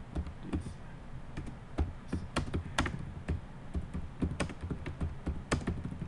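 Typing on a computer keyboard: a run of irregularly spaced keystroke clicks.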